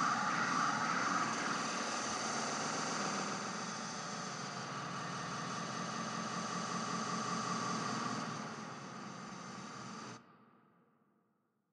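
Closing noise drone of an electronic track: a dense, steady hiss-like texture with held high tones. It eases off, then cuts off sharply about ten seconds in, leaving a short fading tail into silence.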